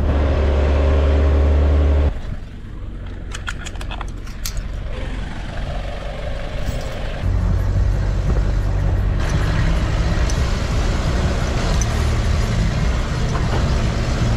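Four-wheel-drive vehicle driving on a gravel track, heard from on board: engine running with tyre and road noise. The sound changes abruptly about two seconds in and again around seven seconds, with a few sharp clicks in between.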